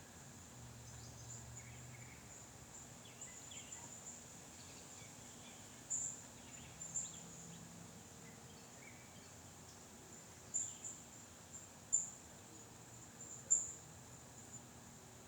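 Faint steady high-pitched insect trilling, with a handful of short, louder chirps in the second half.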